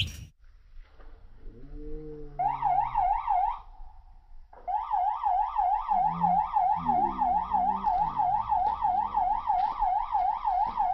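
Electronic fishing bite alarm sounding a rapid warbling siren tone, about three to four warbles a second. It starts about two seconds in, breaks off briefly near four seconds, then sounds continuously. It signals a fish taking the bait on one of the rods.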